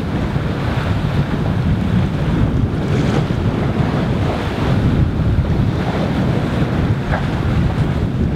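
Wind buffeting the microphone over the rush of sea waves around a sailing yacht under way; a steady, rumbling noise with no distinct events.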